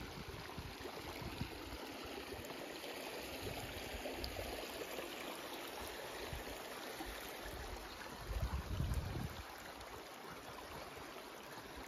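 Shallow creek water running and trickling over rocks, a steady rushing hiss, with a brief low rumble about eight seconds in.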